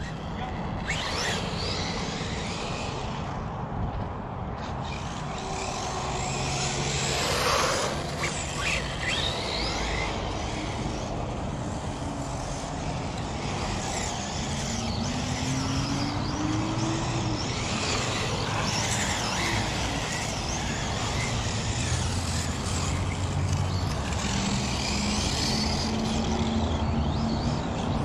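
Electric radio-controlled car motors whining as the cars are driven around on asphalt, with tyre noise; the whine rises in pitch near the middle, then drops away.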